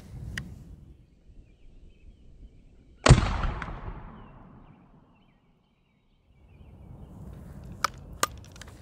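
A single sharp bang about three seconds in, echoing away over about two seconds. Near the end come two short, sharp clicks about half a second apart.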